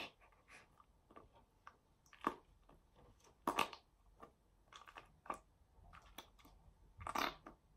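Slime being squeezed and pushed into a small plastic toy compartment: faint, irregular wet squelches and sticky clicks.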